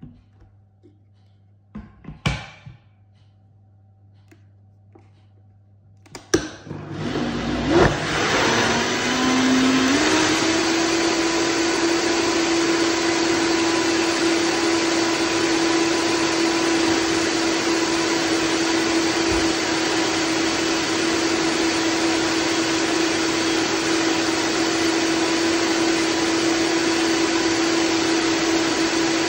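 A couple of knocks as the lid of a Vitamix blender goes on. About six seconds in, its motor starts and climbs in pitch over a few seconds, then runs steadily at high speed to the end.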